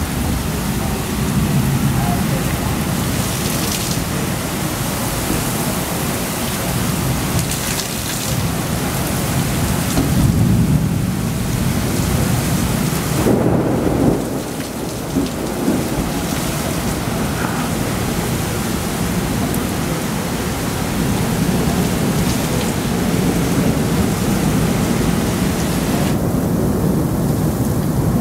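Heavy downpour of rain pouring down steadily, with thunder rumbling underneath.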